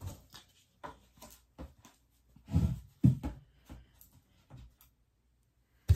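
Irregular knocks, thumps and light rustles of items being handled and set down on a desk while a package is unpacked, loudest about two and a half to three and a half seconds in.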